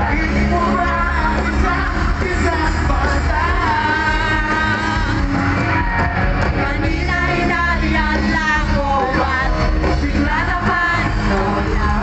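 Live band with a lead singer playing a pop-rock song over a loud sound system, heard from the crowd on a phone microphone, with a steady heavy bass line under the sung melody.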